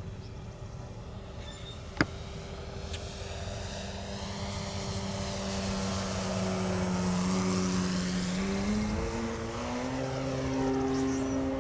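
Brushless electric motor and propeller of a large-scale RC Ercoupe model plane in flight, a steady pitched whine that grows louder toward the middle as it passes. About nine seconds in the pitch steps up as the throttle is opened. A single sharp click about two seconds in.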